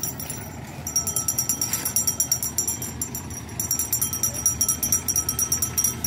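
Background music with a steady, fast high percussion beat, dropping out briefly about half a second in.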